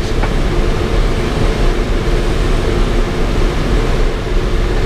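Steady rush of airflow past an ASK 13 glider's canopy, heard inside the cockpit in engineless gliding flight.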